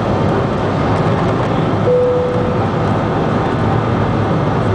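Steady engine and airflow noise of an Airbus A320 heard inside the cabin from a window seat during the climb after takeoff. A short steady tone sounds for under a second about two seconds in.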